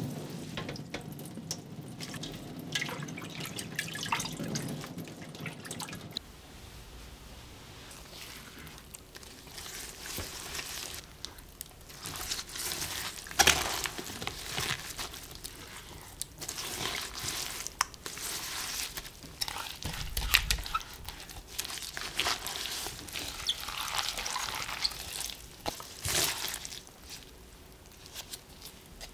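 Wet pepper leaves dropped into a metal strainer, water dripping from them as they drain. About six seconds in, this gives way to irregular wet rustling and squishing as a gloved hand works the leaves into kimchi seasoning paste in a bowl.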